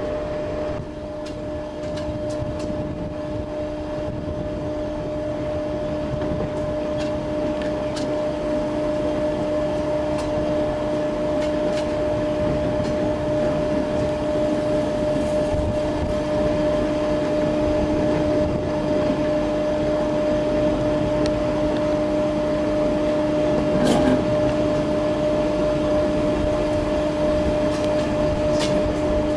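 A 4-CEP slam-door electric multiple unit running slowly along the track, heard from an open coach window: a steady droning hum over the rumble of the wheels, with scattered light clicks and one louder knock about 24 seconds in.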